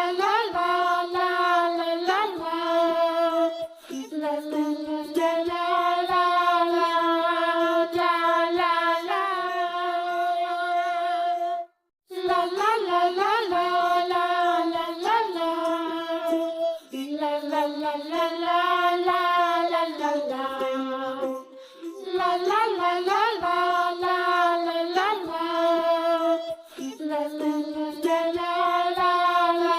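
Children's song sung by a child's voice with music, a melodic tune that breaks off for a moment about twelve seconds in.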